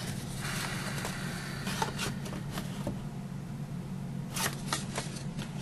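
Hands handling a cardstock paper box: soft paper rustling and sliding with a few small taps and clicks, over a steady low hum.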